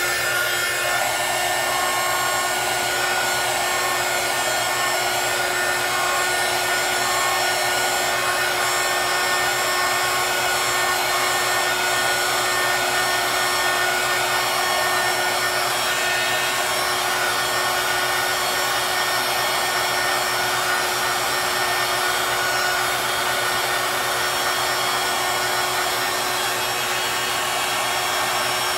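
Heat gun blowing continuously at a steady pitch: a rush of air with a steady hum from its fan motor.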